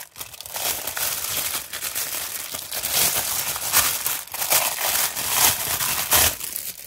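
Thin clear plastic packaging bag crinkling as hands work it open and pull a silicone mold out of it: continuous rustling dotted with many sharp crackles.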